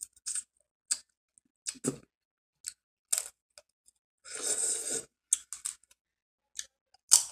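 Crab-leg shells cracking and snapping in the hands in a string of short, sharp clicks. About four seconds in there is a longer sucking slurp as meat is drawn from a shell piece with the mouth.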